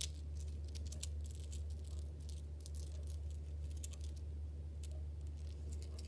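Beads on a fidget bracelet clicking and rattling as they are fiddled with in the hand: many small, irregular clicks over a steady low hum.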